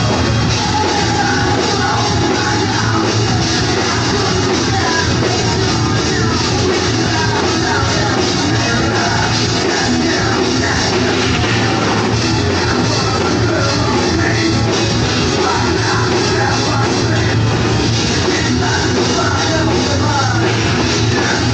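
A punk rock band playing live and loud: electric guitars, bass guitar and drum kit, with a singer shouting the vocals over them.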